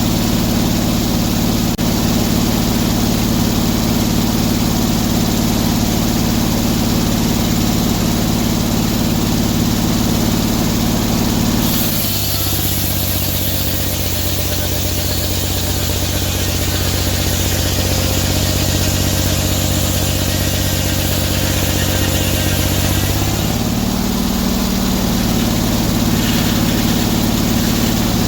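Sawmill engine running steadily. A little before halfway its note changes and a hiss joins in for about eleven seconds, then the first note returns.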